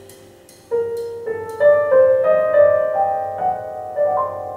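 Recorded piano music played over hi-fi tower loudspeakers: after a quiet start, piano notes come in a little under a second in, struck one after another and building into chords, then ringing on.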